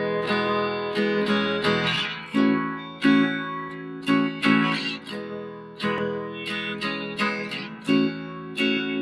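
Background music: an acoustic guitar playing a steady run of chords.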